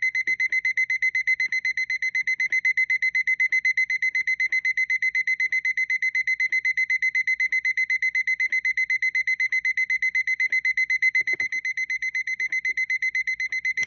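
Alarm clock ringing: a high, shrill tone pulsing rapidly and evenly, about six pulses a second, without a break.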